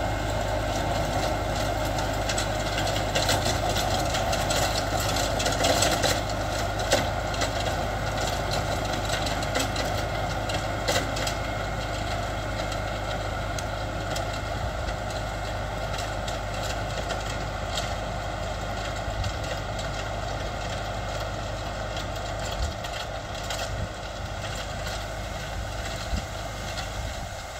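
Kubota MX5800 tractor's four-cylinder diesel engine running steadily under load while the Land Pride rotary tiller behind it churns grass and soil, with scattered crackling from the tines. The sound eases off slowly as the tractor pulls away.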